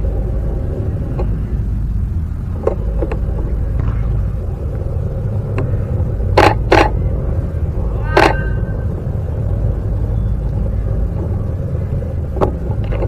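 Canon 5D Mark III shutter firing single frames: sharp clicks, a pair about a third of the way in, another pair just before the middle and one more a little later, over a steady low rumble.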